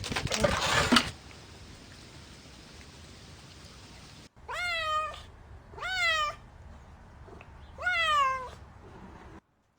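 A cat meowing three times, about a second apart, each meow rising and then falling in pitch. A loud rushing noise fills the first second.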